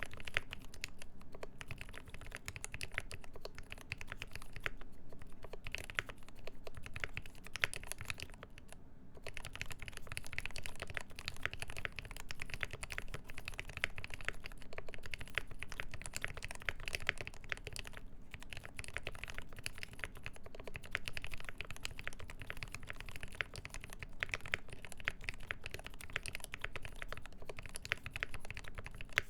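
Continuous fast typing on a Mode 80 mechanical keyboard with a full brass plate, lubed ZealPC Tealios linear switches with milky Gateron top housings, and GMK keycaps, with brief pauses between bursts of keystrokes.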